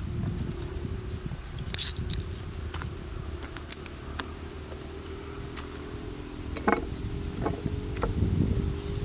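Garlic cloves and chili peppers dropped by hand into a stone mortar: a few scattered light taps and clicks, the clearest about two-thirds of the way through, over a steady low rumble.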